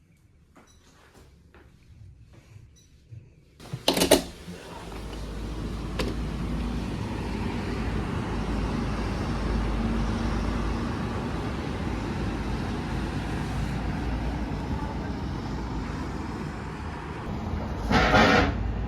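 Steady low rumble and running noise inside a moving vehicle, starting about four seconds in after a short sharp clatter, with a faint steady hum through the middle. A brief louder sound with a mix of tones comes near the end.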